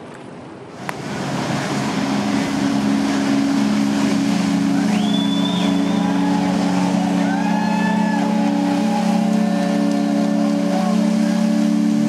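The Delta Queen's steam whistle blowing one long, deep, chord-like blast, which starts about a second in and is held steadily. Shorter, higher sliding whistled notes sound over it.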